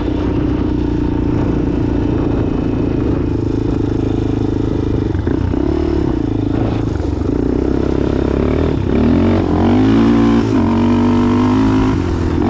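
Single-cylinder off-road engine running steadily, then revved up and down several times from about nine seconds in.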